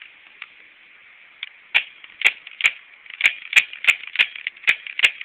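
Crosman C11 CO2 pistol firing a rapid string of about nine sharp shots, roughly two or three a second, starting a little under two seconds in.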